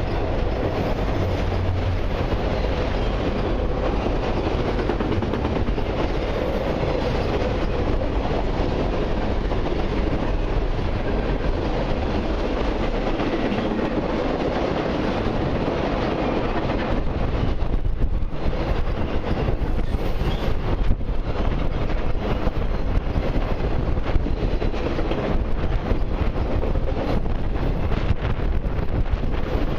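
Freight cars of a long mixed and autorack train rolling past on steel rails: a steady rumble of wheels, with sharp clicks of wheels over the rail joints in the second half.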